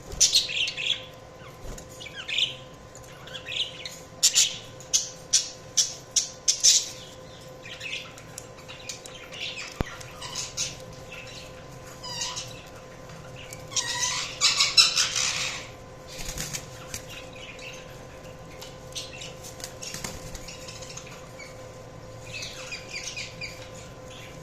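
Budgerigars chirping and chattering in short, scattered calls, with one loud burst of dense chatter around the middle and softer warbling near the end.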